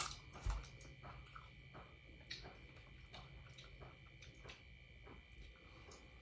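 Faint chewing, with small mouth clicks and smacks scattered irregularly, of people eating chicken wings by hand, over a faint steady hum.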